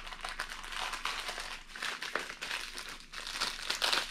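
Thin plastic bag crinkling as it is handled and opened to get a vinyl Funko Soda figure out, a dense irregular crackle that grows louder near the end.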